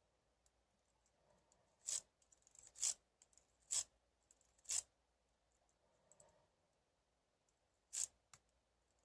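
Metal lock pick scraping in the keyway of a Medeco biaxial 6-pin lock cylinder: four short scrapes about a second apart, then one more a few seconds later, with faint small clicks between.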